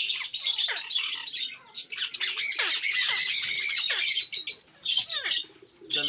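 Alexandrine parakeet screeching: harsh, rasping high-pitched calls in a near-continuous run that is loudest in the middle, with several calls sliding down in pitch, then shorter calls with gaps near the end.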